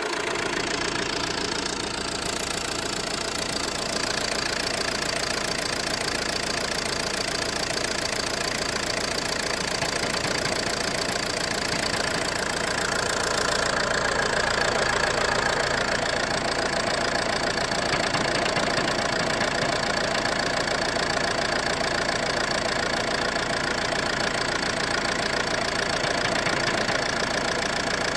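Ford C-Max engine idling steadily with a knocking noise, which the owner suspects comes from the flywheel.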